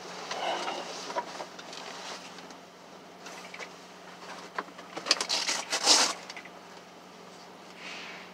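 Rustling and clattering of small objects being handled in a truck cab, with a dense burst of handling noise about five to six seconds in, over a faint steady low hum.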